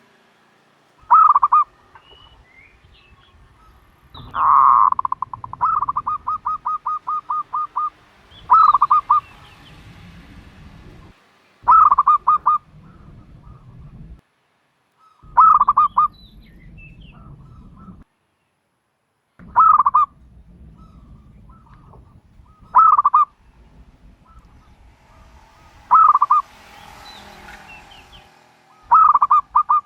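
Turtle dove calling over and over: short loud bursts of quick pulsed coos about every three seconds, one drawn out into a run of a dozen or so rapid pulses about four seconds in.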